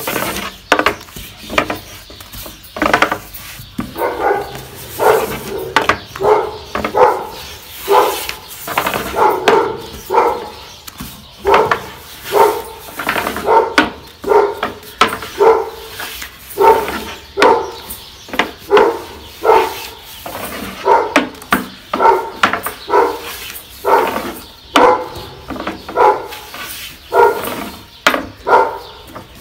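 A dog barking over and over, about once a second, with some barks coming in quick pairs.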